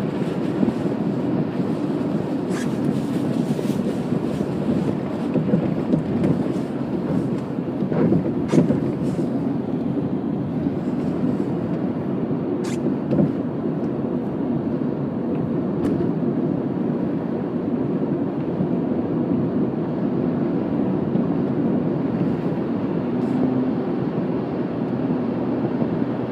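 Steady low rumble of a car driving at highway speed, heard from inside the cabin: tyre and engine noise, with a few brief clicks.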